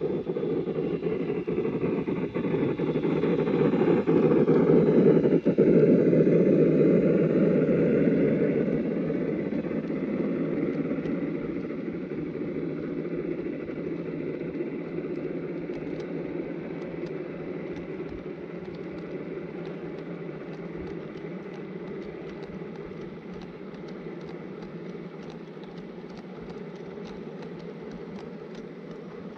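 Garden-scale model train running past: the locomotive's motor and gearing hum with the wheels rolling on the rails, loudest as the locomotive passes close about five seconds in, then slowly fading as the log cars roll by with light clicking from the wheels on the track.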